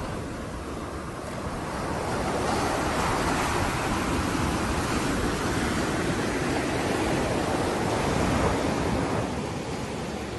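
Sea surf washing onto a sandy beach: a steady rush of breaking waves, growing louder about two seconds in and dropping back near the end.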